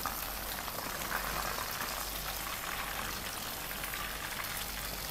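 Cornstarch-coated chicken pieces deep-frying in hot oil in a wok, a steady sizzle; the chicken is crisp and nearly done.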